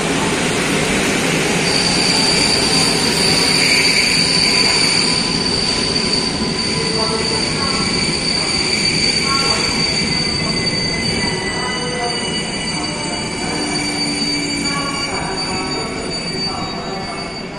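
PKP Intercity passenger coaches moving through the station, their wheels squealing on the rails in a steady high pitch from about two seconds in, over the running noise of the train.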